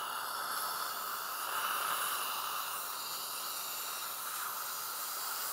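A steady, even hiss with no breaks.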